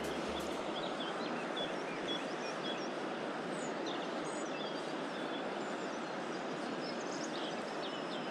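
Steady rushing of a river's flowing water, with small birds chirping here and there over it.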